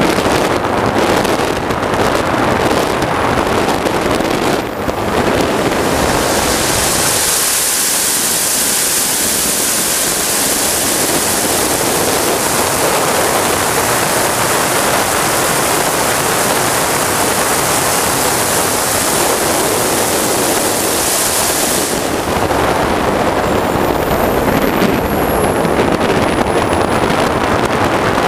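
Large RC sport jet's model turbine engine running at power: a loud, steady rushing noise with wind on the microphone. A bright high hiss swells about six seconds in and drops back some fifteen seconds later, and near the end a thin high whine falls in pitch.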